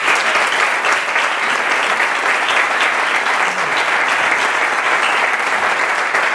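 Audience applauding: a steady ovation of many hands clapping at an even level.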